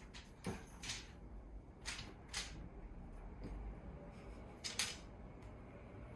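A handful of short, scratchy rustles at irregular intervals, the loudest a little under five seconds in, over a faint low hum.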